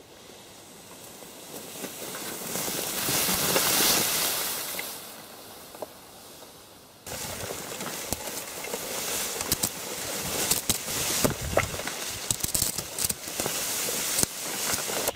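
Tall grass rustling close to the microphone: a soft hiss that grows and fades over the first few seconds, then after a sudden change about seven seconds in, a denser crackling rustle with many small clicks.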